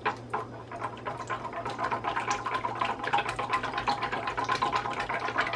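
A green whisk beating a thin liquid mix of warm milk, yeast, sugar, eggs and butter in a stainless steel stand-mixer bowl by hand: continuous wet sloshing with rapid taps of the whisk against the steel. This is the wet ingredients being mixed smooth before the flour is added.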